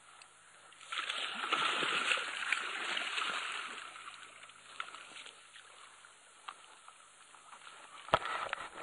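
Water splashing and sloshing for about three seconds, starting about a second in, as a hooked snook thrashes at the surface while it is being landed. A few sharp knocks near the end.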